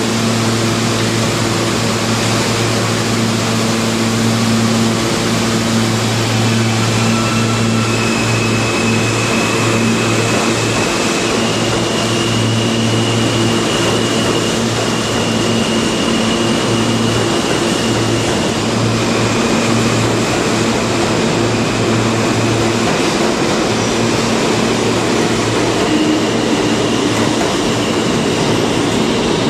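R160 New York City Subway train standing at the platform with a steady electrical hum, then pulling out and running past: a loud, continuous rumble and rattle of the cars, with a high whine partway through as it picks up speed.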